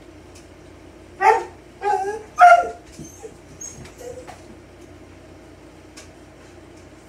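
A dog barking three times in quick succession about a second in, followed by a few softer, shorter sounds. A steady low hum runs underneath.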